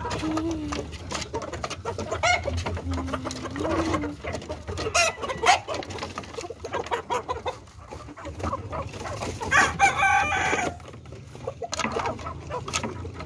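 Chickens clucking, with a rooster crowing once about ten seconds in, and several sharp clicks.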